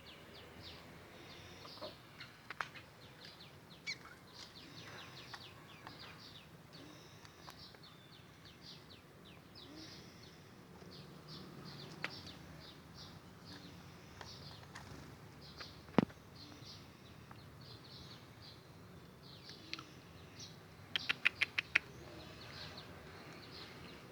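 Small aviary birds chirping and twittering in short high notes throughout, with a quick run of five or six sharp notes about 21 s in. A few sharp clicks also sound, the loudest about 16 s in.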